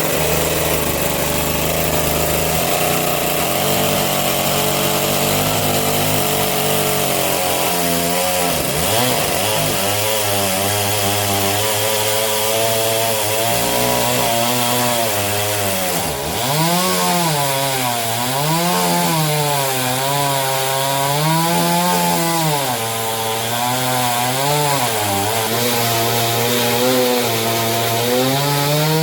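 Chainsaw engine running while cutting into a wooden tree stump, its pitch rising and falling every second or two as the load on it changes.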